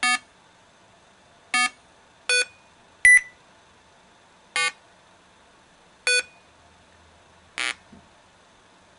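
Small oval loudspeaker driven by an Arduino sounding seven short electronic beeps of different pitches, spaced about one to one and a half seconds apart: the notes of a tune played back slowly.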